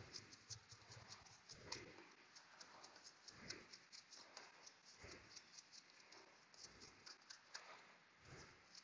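A brush scrubbing brake dust off a brake caliper: faint, quick scratchy strokes, about four or five a second.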